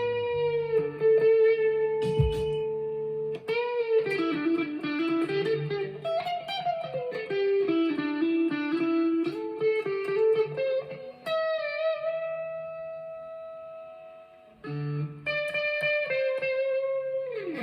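Stagg SEL-STD electric guitar played through a Fender Mustang LT25 amp: a single-note lead line of long sustained notes with string bends and vibrato, ending in a downward slide.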